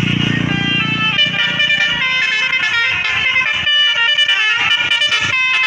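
Bus 'telolet basuri' musical air horn playing a quick melody of short stepped notes, one after another. A low vehicle rumble fades out in the first moment.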